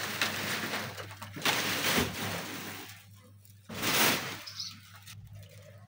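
Plastic sheeting rustling and crinkling as it is handled. There is a dense stretch through the first three seconds, then a short sharp crackle about four seconds in, over a steady low hum.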